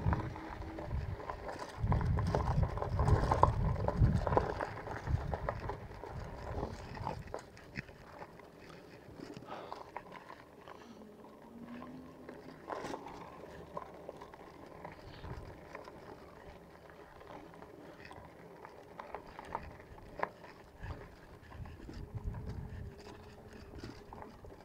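Fat-tyre e-bike with 4-inch tyres rolling over thick gravel, with wind rumbling on the handlebar microphone. The rumble is loudest for about the first seven seconds, then falls away as the bike slows, leaving scattered light crunches and clicks.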